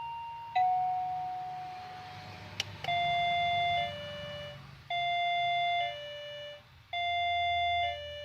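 Plug-in wireless doorbell chime unit cycling through its chime tunes while its button is held. First a falling two-note electronic ding-dong that fades. Then, after a click, a new tune of a high note and a lower note plays three times in a row.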